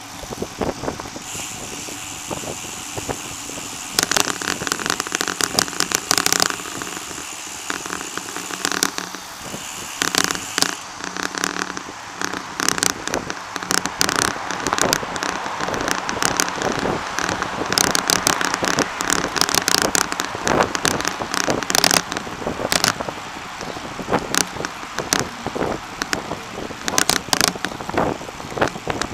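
Rattling, crackling clatter from a bicycle-mounted camera and bike as they roll over a paved bike path: irregular clusters of sharp clicks over a steady rushing noise of tyres and wind.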